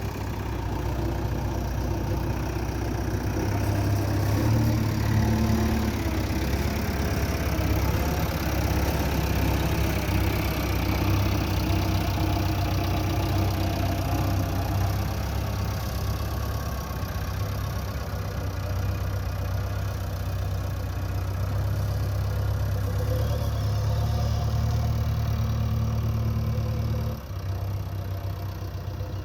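JCB 3DX backhoe loader's diesel engine running, its note swelling and easing, with a sudden drop in level a couple of seconds before the end.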